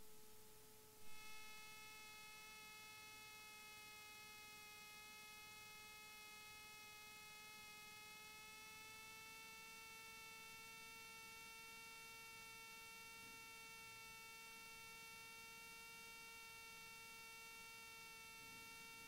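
Near silence: only a faint, steady electrical hum, one pitched tone with many overtones that rises very slightly in pitch about halfway through.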